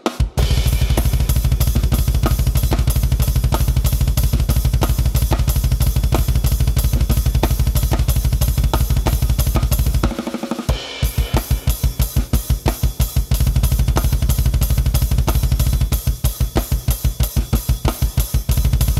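Drum kit with a double bass drum pedal playing a fast, non-stop stream of even bass drum strokes at 185 BPM, with snare and cymbals on top. The kicks break off for about half a second near the middle, then carry on.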